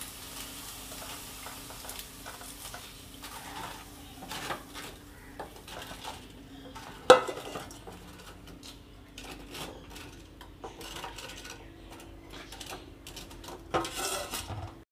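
Wooden spatula stirring milk in a nonstick kadai heating over caramelised sugar: soft scraping against the pan with scattered light knocks, and one sharp knock about seven seconds in.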